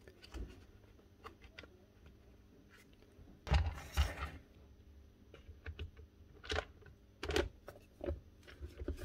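Scattered light clicks, taps and rustling of wires and plastic parts being handled and pressed into place in a cordless hedge trimmer's housing, with a louder cluster of knocks about three and a half seconds in.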